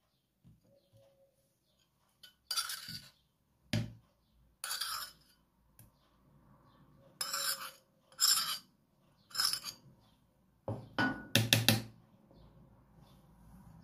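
A metal teaspoon clinking and scraping against a small plate and a bowl as condiments are spooned onto raw eggs, in short separate bursts roughly once a second, with a quick run of clinks near the end.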